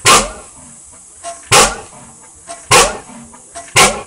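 1953 Ruston & Hornsby 9XHR 38-litre oil engine running slowly on its first run after restoration, its exhaust firing in loud, sharp beats about once every 1.2 seconds, four in a row.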